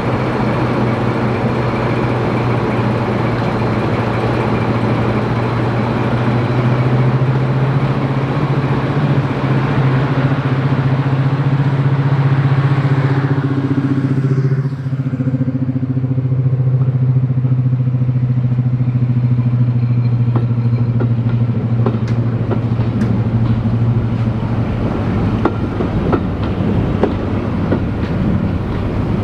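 Heritage British Rail diesel locomotive engine running under power with a loud, steady low drone. About halfway through the sound changes as the locomotive passes, then it eases off near the end.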